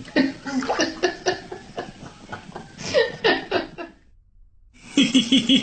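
Laughter in short bursts, broken by a brief silence about four seconds in, then more vocal sounds.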